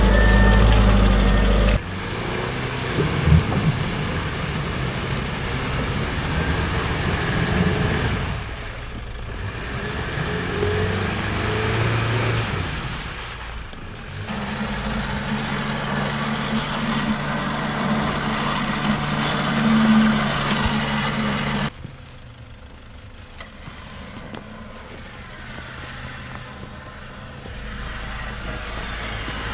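Off-road vehicle engines running, heard across several short shots that cut abruptly from one to the next, with the pitch and level jumping at each cut. A sharp knock comes about three seconds in.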